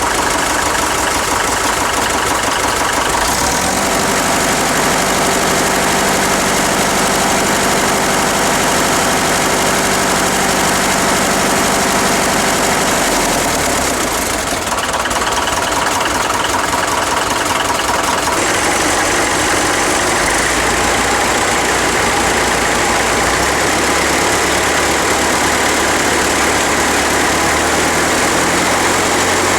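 Farmall gas-start diesel tractor engine running at a steady idle, with loose sheet metal and emblems buzzing along with it. Its note shifts several times.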